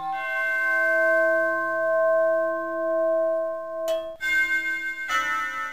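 Background music of sustained bell-like chords: one long chord held for nearly four seconds, then new chords about four and five seconds in.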